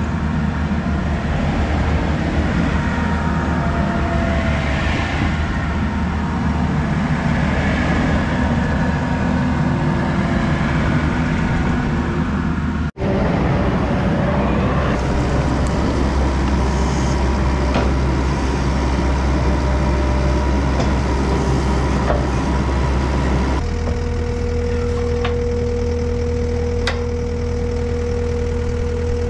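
Takeuchi TL12 compact track loader's diesel engine running steadily, with a sharp break about 13 seconds in. Past the three-quarter mark it settles into an even, steady-pitched hum, as at idle.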